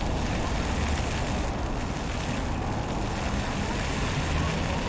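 Wind buffeting the camera's microphone: a steady noise, heaviest at the low end, over outdoor street ambience.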